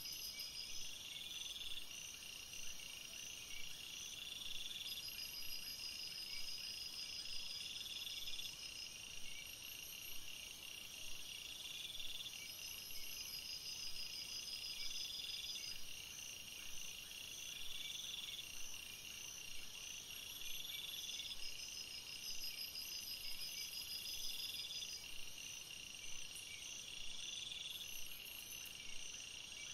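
Night chorus of calling insects and frogs: several high, pulsing trills overlap, one trill about a second long repeating every two and a half seconds or so, over a steadier high buzzing.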